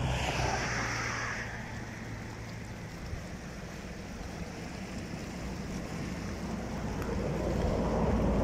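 Rushing floodwater of a fast-flowing desert rain stream, a steady wash of water noise, with wind buffeting the microphone and growing stronger near the end. A vehicle engine hums low in the first couple of seconds.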